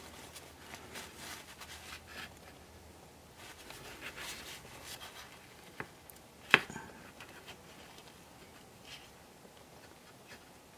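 Soft rustling and rubbing of a paper towel and fingertips on a small plastic model locomotive body, wiping off excess paint. A sharp click about six and a half seconds in is the loudest sound.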